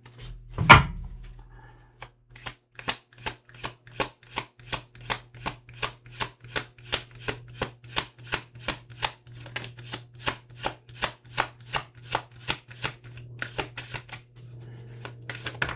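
A deck of tarot cards being shuffled by hand: a steady run of crisp card clicks, about three a second, after a single thump about a second in.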